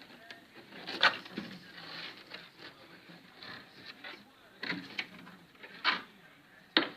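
Handling noise: a series of sharp knocks and clunks, about five in seven seconds, with lighter clattering in between.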